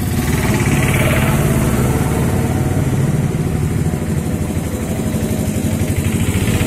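A motor vehicle engine running close by, idling steadily.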